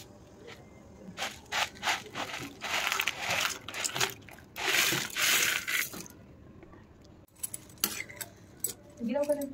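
Dry fusilli pasta poured from a plastic bowl into a steel pot of boiling water: a rattling, splashing rush in two spells, about two and a half and about five seconds in, with scattered clicks and knocks before and after.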